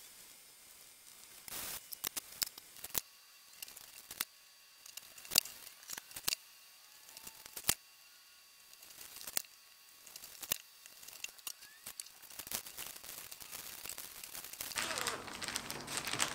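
Plastic cling film crinkling in scattered sharp crackles while breaded cutlets are wrapped, then a denser rustle of a plastic zipper bag being handled near the end.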